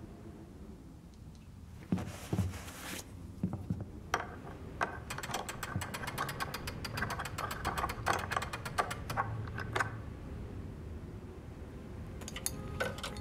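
Clockwork mechanism running with dense, rapid clicking for several seconds, after a brief rustling sound about two seconds in.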